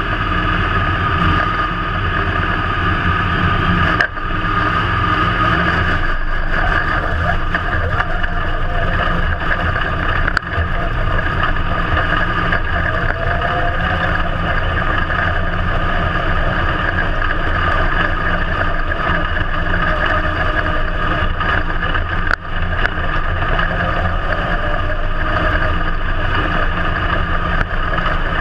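IMCA Modified dirt-track race car's V8 engine running loud and steady, heard from inside the car's cockpit. The sound dips sharply for a moment three times: about 4, 10 and 22 seconds in.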